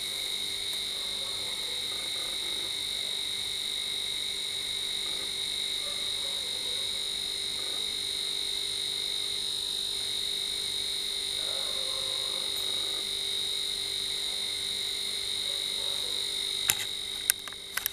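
A steady high-pitched droning chorus with a faint pulsing hum beneath it, over faint rustles of a condenser microphone and its shock mount being handled; a few sharp clicks near the end.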